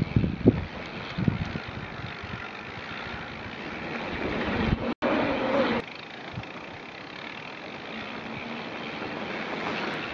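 Mountain bike descending a dirt trail, heard from a bike-mounted camera: a steady rush of wind on the microphone mixed with tyre and trail noise, with a few knocks over bumps in the first second. The sound drops out for an instant about halfway through.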